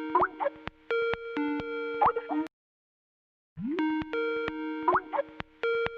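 Skype ringtone playing on a loop: its steady chiming tones and short rising blips repeat, broken by sharp clicks, with a silent break of about a second in the middle.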